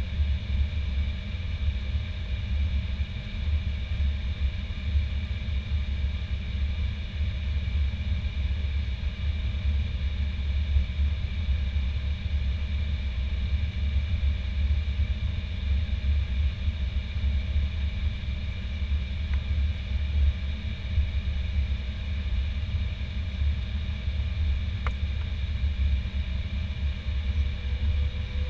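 Airbus A320 cabin noise while taxiing: the jet engines at idle heard from inside as a steady low rumble with a steady higher whine over it.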